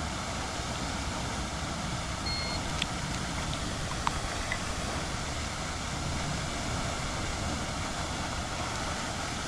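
Steady outdoor background noise, with one short high electronic beep about two seconds in and a couple of faint clicks.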